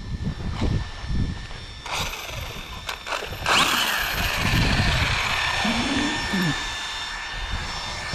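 Brushless electric motor and drivetrain of a 6S RC buggy whining at high pitch. The whine starts abruptly about three and a half seconds in, sweeps down, then holds steady. The rear diff housing has snapped, so the motor spins without driving the rear wheels.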